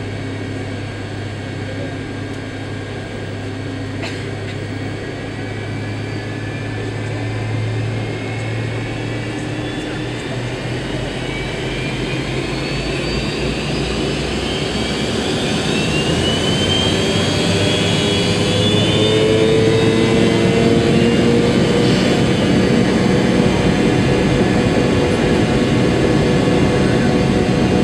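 McDonnell Douglas MD-80's rear-mounted jet engines heard from inside the cabin, spooling up for takeoff. The engine noise grows steadily louder, with whines rising in pitch midway through.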